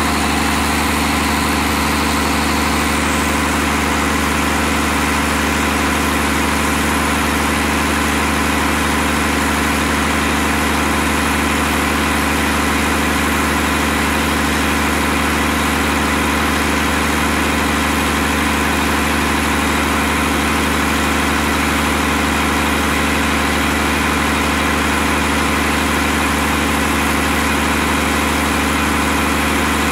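Gardner 6LW six-cylinder diesel engine running steadily on a test stand, with an unchanging low engine note.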